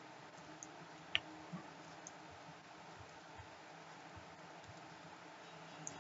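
Computer keyboard typing, faint and sparse, heard as a few short clicks over a steady hiss, with one sharper click about a second in.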